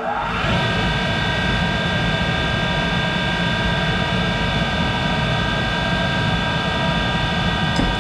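A 1951 Monarch 10EE toolroom lathe starting up and running steadily with no cut being taken. Its whine rises quickly for about the first half-second, then holds as an even hum with several steady whining pitches.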